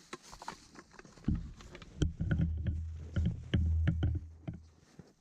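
Footsteps crunching through deep snow in an irregular walking rhythm, with a few low rumbles on the microphone.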